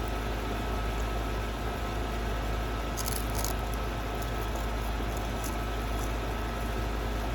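Steady background hum, with a few brief crisp crackles about three seconds in.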